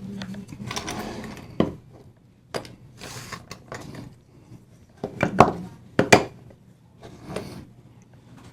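Small hard parts and tools handled on a work surface: scattered clicks and knocks, the sharpest a few seconds in, with soft rustling between them.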